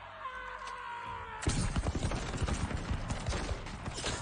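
A sudden volley of rifle fire about a second and a half in: many shots in quick succession, close together and overlapping, in a film soundtrack.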